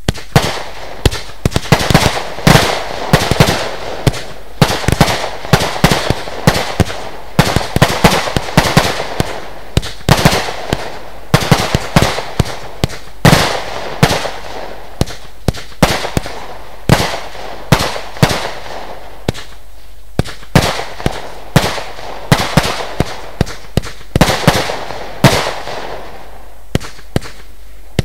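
Lesli Dezemberfest 512-shot, 20 mm compound fireworks cake firing: a rapid, continuous string of sharp shots and bursting bangs, several a second.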